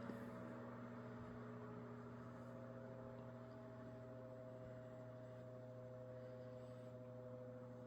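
Mid-to-late-1960s Knapp-Monarch-built Sears Kenmore 12-inch table fan running on its low speed: a quiet, steady motor hum with a soft whir of air from the blades.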